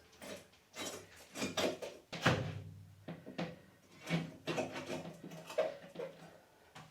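Irregular knocks and clatter from plumbing parts being handled and fitted into place, about a dozen sharp knocks with the loudest a little over two seconds in.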